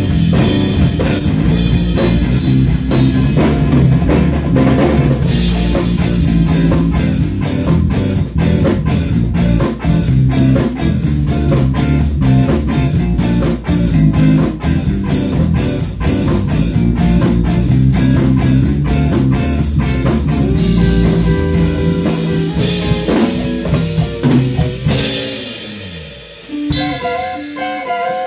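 Live rock jam with two drum kits, electric guitar and electric bass playing together, the drums driving a steady beat. Near the end the drums stop and a picked electric guitar line carries on.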